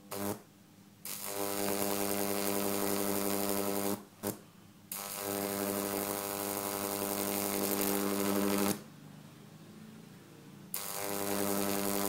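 High-voltage arc from a 2 kV microwave oven transformer power supply, making a steady deep buzz. It is switched on and off: three runs of a few seconds each, with short blips and quiet gaps between.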